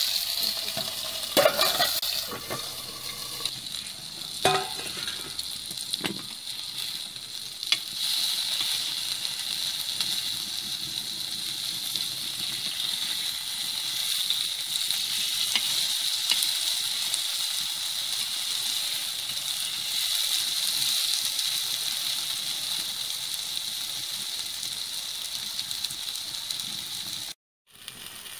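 Spice-coated okra sizzling in oil on a flat iron tawa, a steady frying hiss. A few sharp metal clinks from the steel lid and spatula against the pan come in the first several seconds.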